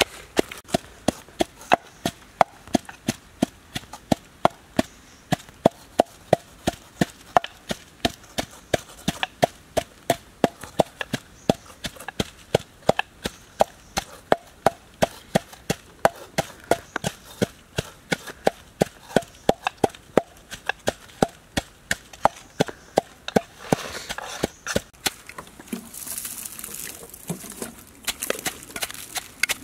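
Wooden pestle pounding chilies and garlic in a wooden mortar, a steady run of dull wood-on-wood knocks about three a second. Near the end the knocking thins out under a brief grainy hiss as white granules go into the mortar.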